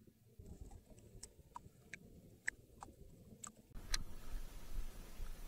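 Faint, irregular ticks and clicks from a fishing reel as a lure is retrieved. About two-thirds of the way through, wind noise on the microphone rises as a low rumble and hiss.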